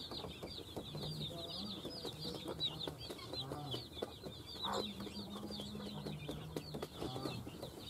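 Chicks peeping rapidly and continuously in high chirps, over a mother hen's low clucking. Short clicks and rustles come from the hen pecking in dry straw.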